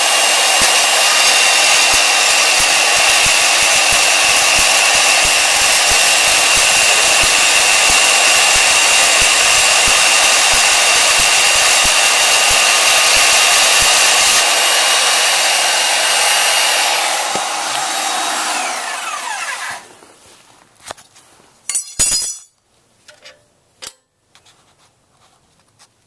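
A corded Milwaukee 6230 portable band saw, mounted vertically, cuts through a rusty flat steel bar with a loud, steady run. About two-thirds of the way through the level drops and the motor winds down to a stop with a falling whine. A few sharp clanks follow.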